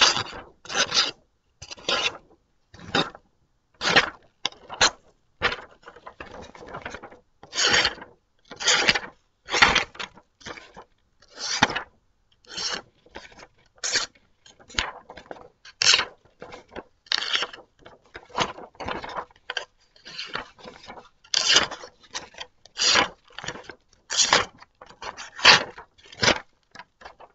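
Knife blade drawn across a whetstone in repeated sharpening strokes, roughly one a second, each a short gritty rasp of steel on stone.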